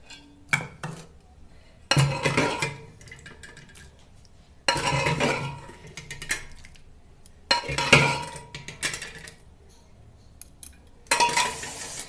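A wooden spatula scraping and knocking against a metal pressure cooker as boiled chickpeas and potatoes are scooped out into a bowl, in about five bouts of clatter a couple of seconds apart.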